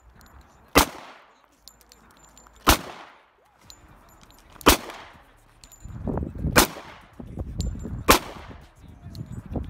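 Pistol fired five times at a slow, steady pace, about one shot every two seconds. Each sharp crack trails off in a short echo.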